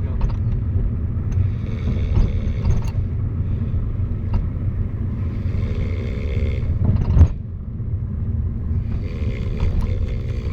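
Road rumble inside a moving car's cabin, steady and low. A sleeping man's snoring breaths come back about every three to four seconds over it. There is a sharp knock a little after seven seconds in.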